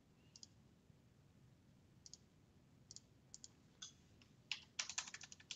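Faint computer mouse clicks and keyboard keystrokes: a few scattered single clicks, then a quick run of keystrokes from about four and a half seconds in.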